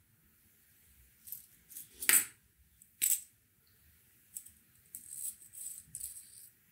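Small clicks of a plastic tube of spare WDT needles being handled and opened, the loudest about two seconds in, then a run of light metallic jingling as the thin metal needles are slid out and laid down on a plastic mat.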